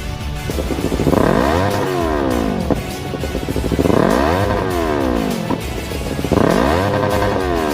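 Yamaha R3 parallel-twin engine through an Akrapovic slip-on muffler, revved three times. Each blip rises quickly in pitch and then falls back slowly toward idle.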